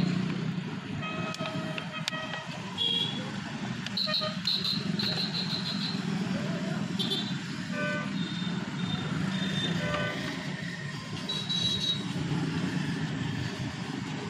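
Steady hum of road traffic, with vehicle horns tooting briefly several times.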